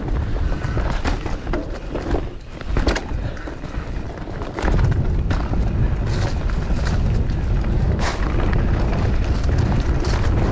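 Enduro mountain bike riding down a trail: wind rumbling on the action camera's microphone, with tyre noise and the bike clattering over bumps in sharp knocks. The wind rumble gets louder about four and a half seconds in.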